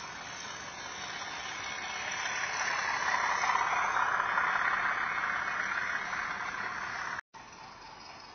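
A model train running past: the motor of a model diesel locomotive and the wheels of its freight wagons rolling on the track, swelling as the train nears and fading as it goes by. The sound breaks off abruptly about seven seconds in, then a quieter running sound carries on.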